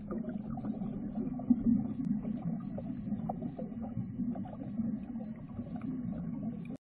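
Muffled underwater sound picked up by a camera in its housing: a steady low rumble with faint scattered clicks. It cuts off abruptly near the end.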